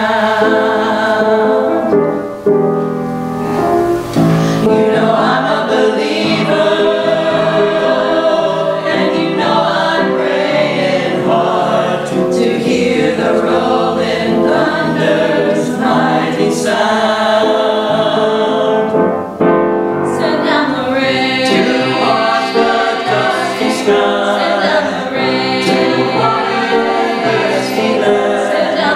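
Small mixed vocal ensemble of women's and men's voices singing a choral anthem in harmony, with sustained held notes and short breaks between phrases.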